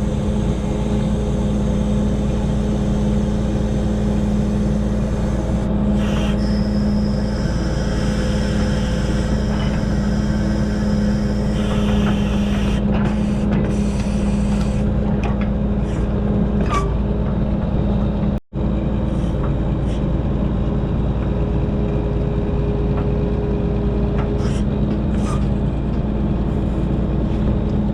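Diesel engine of a 1974 Kenworth self-loading log truck running steadily with an even hum while its log loader works, with a few light knocks. The sound cuts out for an instant about two-thirds of the way through.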